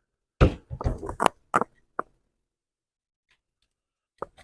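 A quick series of sharp clicks and knocks from small objects being handled and set down on a workbench, about eight in the first two seconds. Two faint clicks follow near the end.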